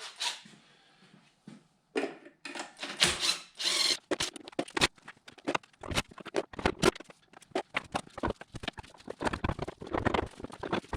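Hand tools working on engine-mount bolts: a short spell of scraping and clattering, then a socket ratchet clicking in quick runs.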